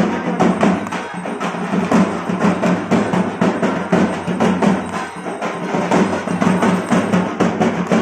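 Dhak drums, the large barrel drums of Durga Puja, beaten with sticks in a fast, steady run of strokes.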